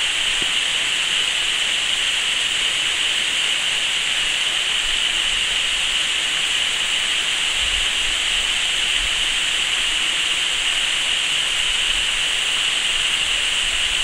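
Waterfall pouring down a tall rock face: a steady, loud, hissing rush of falling water.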